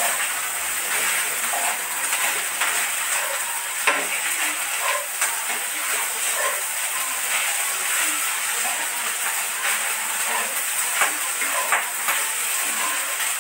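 Fried rice with egg sizzling in a frying pan over a gas flame, with a steady hiss. The spatula scrapes and clicks against the pan many times as the rice is stirred.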